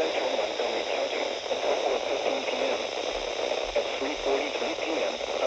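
Weather radio broadcast heard through heavy static: a steady hiss, with a voice reading a weather warning faintly underneath.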